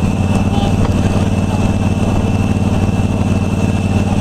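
An engine running steadily at idle, low and pulsing evenly, with a constant thin high whine above it.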